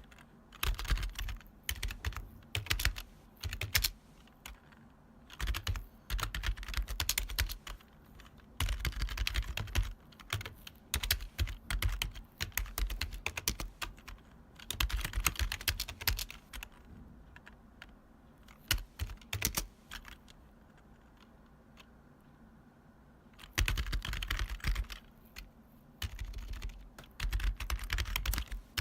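Typing on a retro long-travel keyboard: clacky, rattly keystrokes in quick bursts, broken by short pauses and one longer lull of several seconds with only a few stray key clicks past the middle.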